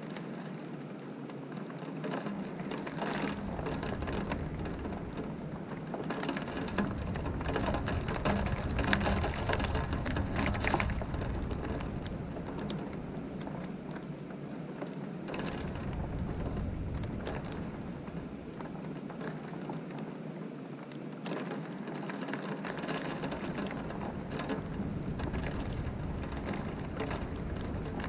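Wind-driven rain beating on a window, a dense patter of drops that swells in gusts, loudest around the middle and again near the end, with a low rumble that comes and goes underneath.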